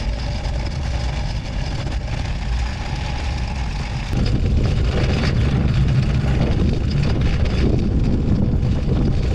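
Steady low rumble of a motor vehicle running, which steps up in loudness about four seconds in and then holds steady.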